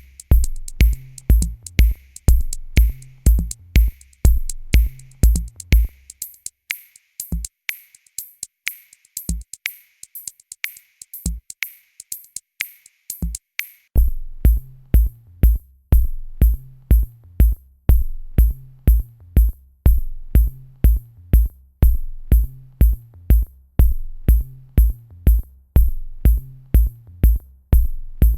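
Electronic music with a drum-machine beat of steady kicks and fast hi-hat ticks. The kick and bass drop out for a break about six seconds in, leaving the hi-hats, and the full beat comes back in around fourteen seconds.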